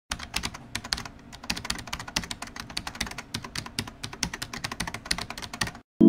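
Rapid, irregular clicking of keys being typed on a keyboard, several strokes a second, cutting off suddenly near the end.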